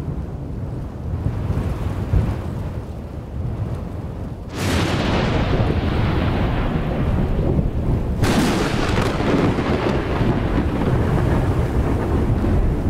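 Thunderstorm with rain: low rolling thunder, then a sharp thunderclap about four and a half seconds in and another about eight seconds in, each rolling on into a loud, long rumble.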